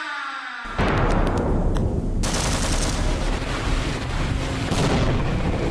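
An air-raid siren winding down in pitch, cut off in under a second by a sudden outbreak of battle sound: rapid gunfire and blasts that grow denser about two seconds in.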